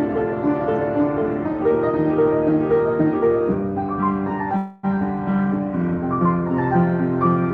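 Solo piano playing a slow piece, sustained chords and a melody line moving note by note, with a brief dropout in the sound about two-thirds of the way through.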